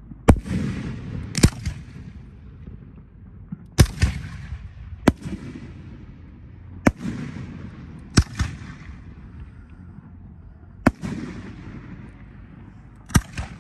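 Aerial fireworks bursting overhead: about nine sharp bangs at irregular intervals of one to two and a half seconds, each trailed by a rumbling echo.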